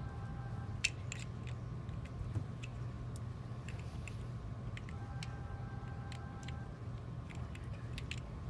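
Scattered small clicks and ticks as rubber and plastic fittings are pushed onto a glass CLEARRAY purifier bulb, the loudest about a second in, over a steady low hum.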